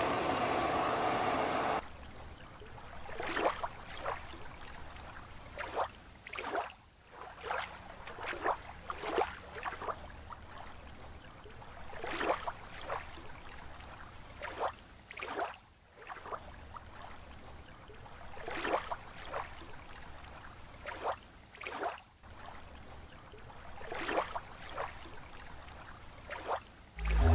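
A steady hum that cuts off about two seconds in, then soft, irregular splashes and swirls of water as a person swims slowly, a stroke every second or two.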